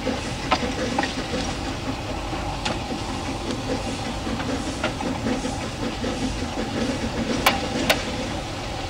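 Narrow-gauge train running with a steady rumble and scattered sharp clicks; the loudest two come close together near the end.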